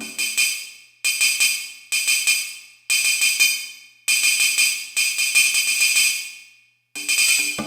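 Roland D-05 synthesizer playing a tambourine-like percussion patch: short jingling rolls that start about once a second and fade away, with a brief pause near the end.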